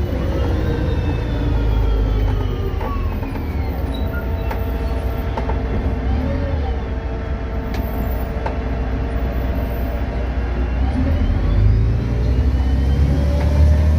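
VDL DB250 double-decker bus heard on board: the drivetrain whine falls away as the bus slows over the first few seconds, the engine rumble eases with a steady electric-fan whine, the 'hoover' sound, carrying on, then the whine and rumble rise again as the bus pulls away near the end.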